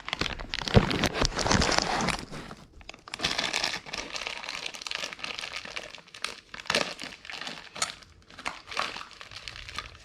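Packaging crinkling and rustling as a new ball joint is unwrapped by hand, with a knock about a second in.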